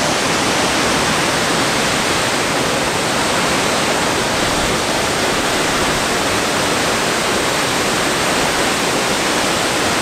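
The 120-metre Velo de Novia waterfall: a loud, steady rush of falling water, unbroken throughout.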